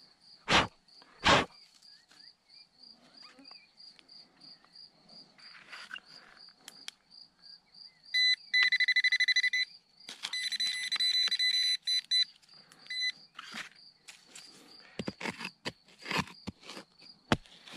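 Handheld metal-detecting pinpointer sounding a rapidly pulsing high beep twice, for about a second and a half and then about two seconds, signalling metal in the dig hole. Two sharp knocks come near the start and a run of scraping strikes in the soil near the end, over a faint, steady high chirping.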